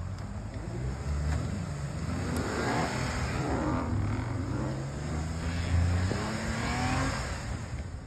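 Pickup truck engine revving in surges, its pitch climbing, easing off about four seconds in, then climbing again, with a whine from wheels spinning as the truck tries to drive out of deep snow.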